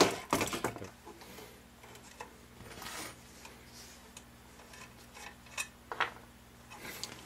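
Open-end wrenches knocking and clinking on a brass compression fitting as the nut is loosened, in the first second, followed by a few small metal clicks as the brass nut, ferrule and fitting body are unscrewed and handled.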